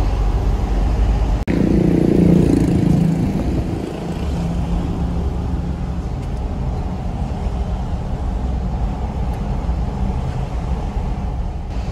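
Minibus engine and road noise heard from inside the cabin while driving. There is an abrupt break about a second and a half in, after which the engine is louder for a moment before settling to a steady run.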